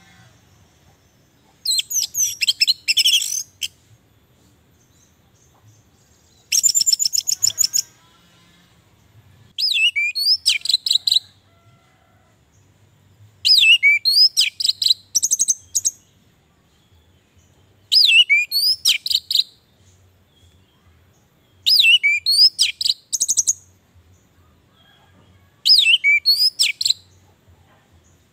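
Orange-headed thrush singing: seven short phrases of quick, varied whistled notes, each one to two seconds long, with pauses of about two seconds between them. Most phrases open with a falling sweep.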